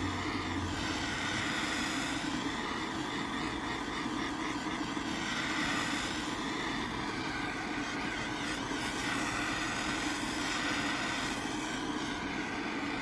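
Handheld gas blowtorch burning with a steady hiss, its flame played over a motorcycle fork's outer tube to heat it evenly before the bushings and seal are fitted.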